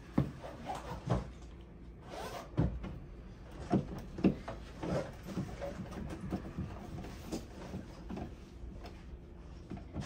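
Screwdriver clicking and scraping against the screws of a plastic light-switch wall plate as they are turned in, in irregular short knocks.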